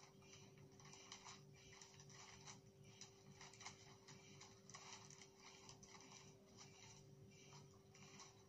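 Faint, irregular rustling and crinkling of gift-wrap paper being handled and folded, over a steady low hum.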